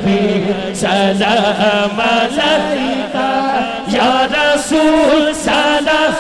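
Male voices chanting a Punjabi naat, a melodic devotional chant sung through a microphone and loudspeakers, with several voices overlapping in long held, gliding lines.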